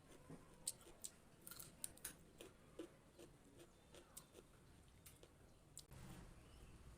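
Faint crisp crunching from raw vegetable being bitten and chewed: a string of irregular sharp snaps, closest together in the first few seconds.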